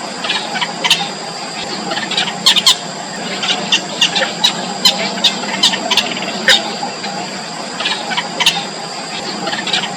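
Yellow bittern chicks calling in the nest: many short, sharp squeaky calls at an irregular pace, over a steady high-pitched tone.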